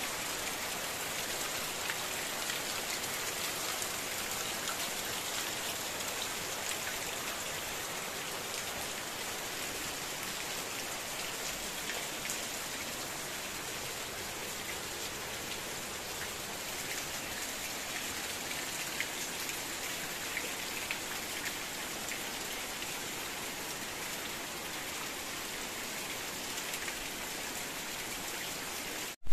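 Heavy rain falling steadily: a dense, even wash of sound with scattered sharper drop hits.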